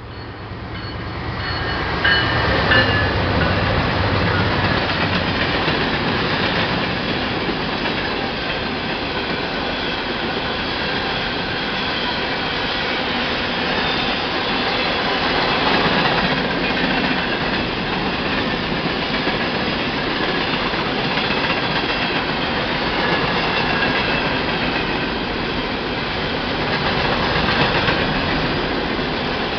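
Freight train passing close by. The diesel locomotive comes up and passes in about the first two seconds, then a long string of freight cars rolls steadily past on the rails.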